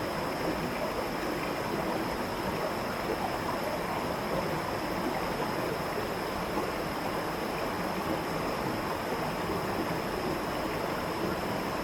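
Waterfall water rushing and splashing in a steady, unbroken flow, swollen at the end of the rainy season.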